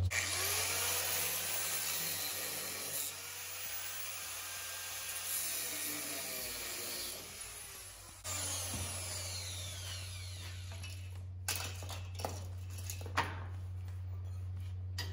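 A power tool cutting through a steel leaf-spring center bolt to shorten it, a continuous hissing grind that dips briefly about eight seconds in, with a few light knocks near the end.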